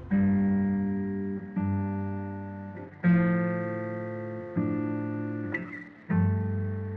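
Background music: guitar chords, a new chord struck about every one and a half seconds and left to ring and fade, five in all.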